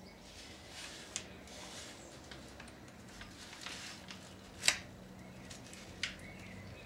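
Faint rustling and a few sharp clicks, one louder snap about two-thirds of the way in, from fingers and a blade working at the bark of a chip-bud graft on a young apple tree's stem, trimming away dead wood at the top of the bud.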